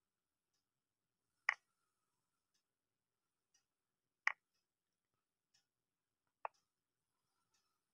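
Digital chess-board move sound effects: three short, sharp clicks spaced a couple of seconds apart, one for each piece placed, the last one a little softer.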